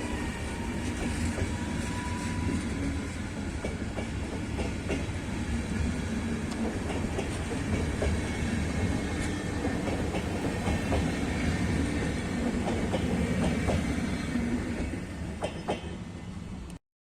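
Passenger train hauled by electric locomotive 388 206 rolling past, wheels clicking over rail joints. A high whine fades out in the first two seconds. The sound dies away and cuts off sharply near the end.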